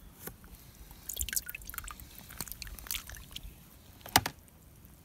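Water dripping and small splashes as a flounder is lifted by hand from a plastic tub of seawater and slipped into shallow water, with one sharper splash about four seconds in.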